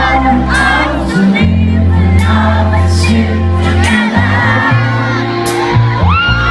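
Live rock band music, loud and full, with steady bass notes that change every second or two, held keyboard tones and cymbal strokes. Voices singing and the crowd cheering are mixed in.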